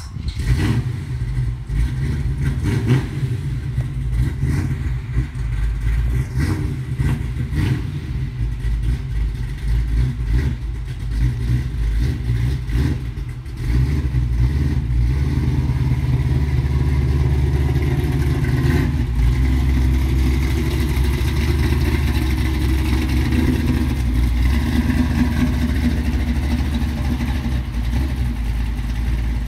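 468 stroker big-block V8 running with a deep rumble, then about halfway through the revs rise and stay up as the truck drives off across the grass.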